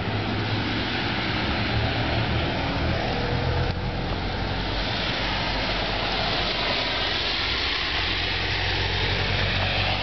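Steady low hum and hiss of vehicle traffic on a wet, slushy street, the hiss growing stronger in the second half.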